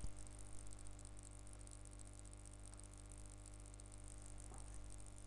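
Faint steady electrical hum and hiss of a recording setup, with a sharp click right at the start and a few faint ticks just after.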